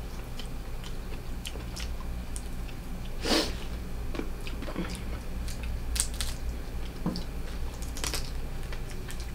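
Close-up eating sounds of a person chewing and sucking steamed blue crab meat, with scattered sharp clicks and cracks of crab shell being picked apart; the loudest crack comes about three seconds in.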